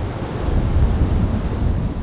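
Gusty winter storm wind buffeting the microphone: a loud, low rush that swells and eases.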